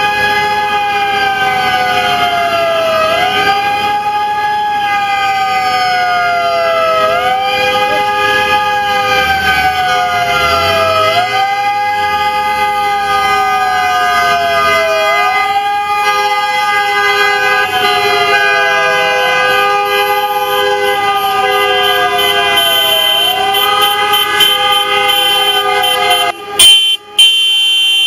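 Police car siren wailing in a slow cycle, a quick rise then a long fall about every four seconds, over several car horns held down in steady tones. Near the end the siren stops and only the horns go on.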